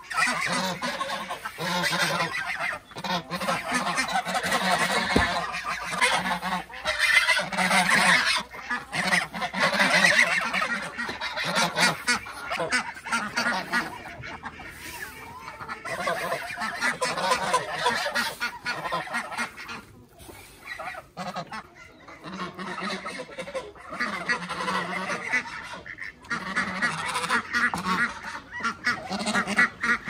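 A mixed farmyard flock of domestic geese, ducks and chickens calling over one another, with the geese honking loudest. The calling is near-continuous and thins out briefly about two-thirds of the way through.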